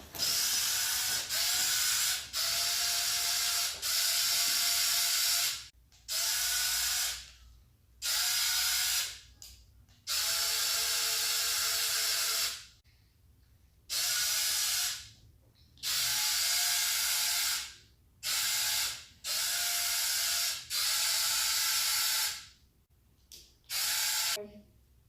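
Small electric motors and gearing of a remote-control wall-climber toy car whirring in short bursts, about a dozen runs of one to two seconds with brief stops between, as it is driven on the floor.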